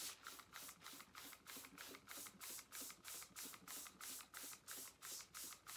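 Handheld trigger spray bottle squirting water onto a paper towel, pumped in an even run of short spritzes about three a second.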